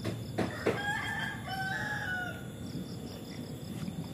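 A rooster crowing once, one drawn-out call lasting about a second and a half that sags in pitch at the end, preceded by two sharp clicks.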